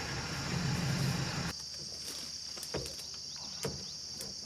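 Steady high-pitched chorus of insects. A low engine rumble beneath it cuts off suddenly about a second and a half in, and a couple of faint knocks follow.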